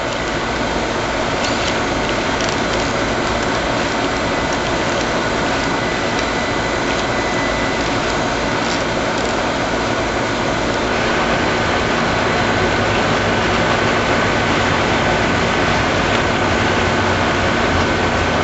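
Electric motor and gear drivetrain of an Axial-based RC rock crawler whining steadily as it crawls up a wooden plank and over rocks, with scattered clicks of tyres and chassis on wood and stone. The whine drops to a lower pitch about halfway through.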